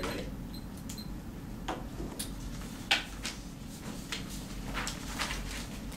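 Scattered small clicks and knocks of a laptop and phone being handled at a desk, with one sharp click about three seconds in, over a low steady room hum.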